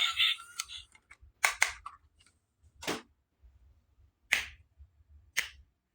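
Hard plastic toy parts clicking and tapping against each other as they are handled, five short sharp clicks spaced irregularly. Music fades out in the first second.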